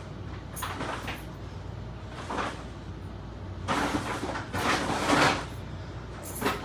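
A series of short scraping and rustling handling noises, one longer and louder run of them about four to five seconds in, over a steady low hum.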